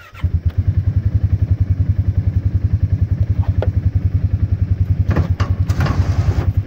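Engine of a Ranger side-by-side utility vehicle running with a rapid low throb as it drives off through tall weeds, setting in abruptly at the start. A few short clatters come past the middle.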